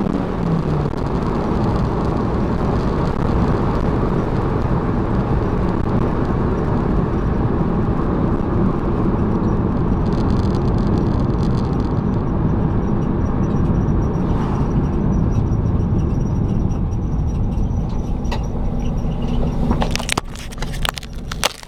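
A 1993 Honda Civic hatchback being driven: its engine note falls right after the start, then a steady mix of engine and road noise runs on. Near the end come several sharp clicks and knocks, and the sound drops off.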